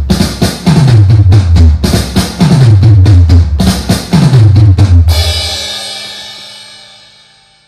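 Outro music: a loud drum-kit beat over bass notes that slide downward again and again, ending about five seconds in on a cymbal crash that rings and fades away.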